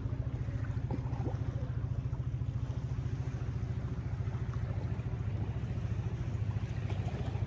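Steady low engine drone with a fast, even throb.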